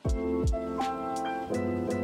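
Background music: a beat with held keyboard chords, evenly spaced hi-hat ticks and two deep bass notes that slide down in pitch near the start.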